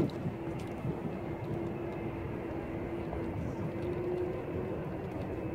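A steady mechanical drone with a held hum running through it, opening with a single sharp knock.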